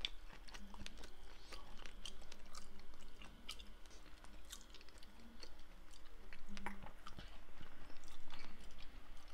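A person chewing a moist strawberry, apple and chocolate-chip muffin, with wet smacks and small clicks of the mouth coming at irregular intervals.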